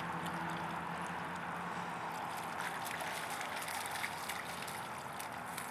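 Shallow creek water trickling and running steadily, with light splashing as a dog wades through it.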